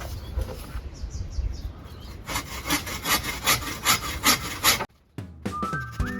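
Hand saw cutting through a fig tree branch, rubbing wood in quick, even strokes about four a second, louder from a couple of seconds in, then cutting off abruptly. Music starts near the end.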